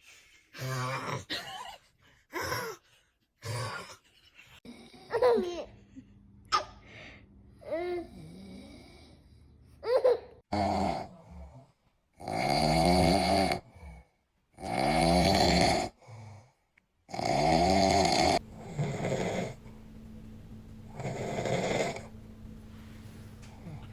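A man snoring in his sleep: a run of loud snores, each about a second and a half long, in the middle of the stretch, with two quieter snores after them. Before them come shorter sounds with a sliding pitch.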